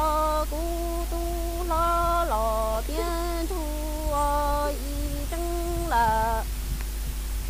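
A woman singing kwv txhiaj, Hmong sung poetry, unaccompanied. Her long held notes step between a few pitches, and the singing stops about six and a half seconds in.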